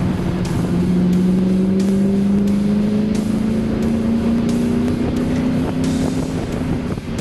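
Ford Mustang's engine heard from inside the cabin, pulling steadily under load with its pitch slowly rising as the car accelerates, over road and wind noise.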